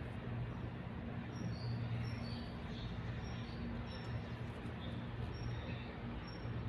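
Mother cat purring steadily while nursing newborn kittens, a low pulsing rumble. Brief faint high chirps come and go over it.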